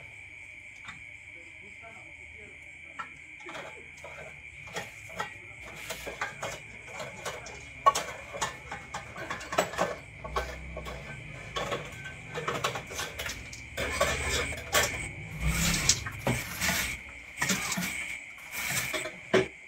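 Popcorn kernels popping inside a gas-heated popcorn pot: scattered sharp pops at first, growing much thicker about two-thirds of the way in, over a steady high-pitched whine.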